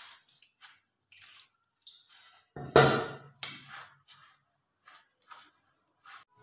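A hand mixing maize flour with lukewarm water in a steel bowl: irregular short wet squishing and pattering sounds, with one louder burst about three seconds in.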